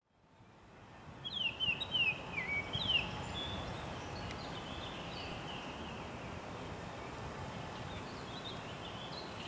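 Small birds chirping: a run of quick, high, downward-sliding notes in the first few seconds, then fainter scattered chirps over a steady outdoor background hiss. The sound fades in from silence at the start.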